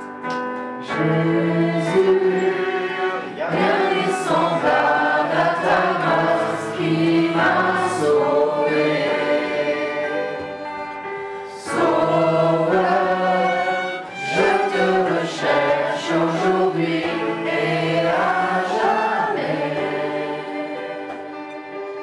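Choral music: a choir singing sustained chords, fading toward the end.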